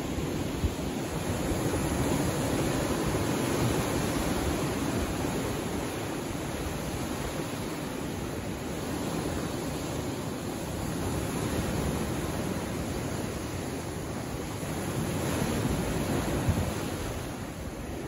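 Small waves of a calm sea washing against shoreline rocks: a steady rush that swells a couple of seconds in and again near the end.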